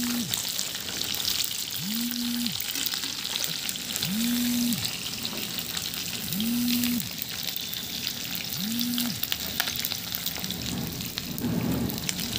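Fish pieces frying in hot oil in a kadhai, a steady sizzle and crackle. A low tone rises, holds briefly and falls away five times, about every two seconds.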